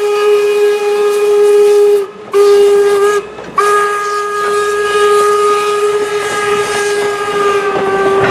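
Steam locomotive whistle blowing long, steady blasts, broken by two short gaps about two and three seconds in, then stopping near the end as the rumble of the train going by takes over.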